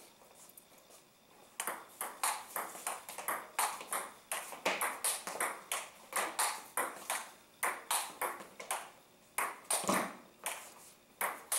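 Table tennis rally: the celluloid ball clicks sharply off the table and the rubber-faced bats in quick alternation, about three hits a second, starting nearly two seconds in.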